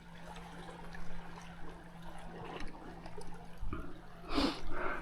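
Water lapping and trickling against the hull of a small boat, with a faint steady hum underneath and a brief louder sound about four seconds in.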